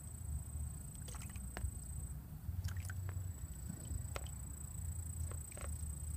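Muddy water sloshing and dripping as a plastic plate is swirled and dipped in a plastic bowl of water, with scattered small splashes and light taps.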